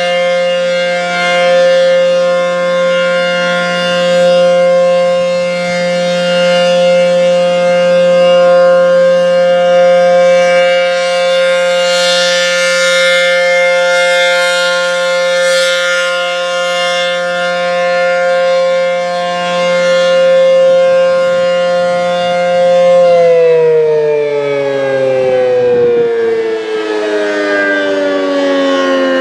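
ACA P-10 rotating outdoor warning siren sounding its steady alert signal, one held pitch swelling and fading in loudness as the rotator turns. About 23 seconds in, the tone begins winding down, the pitch falling steadily as the alert ends.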